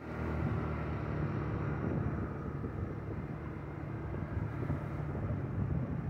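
Vehicle driving along a paved road: a steady low engine hum with road noise.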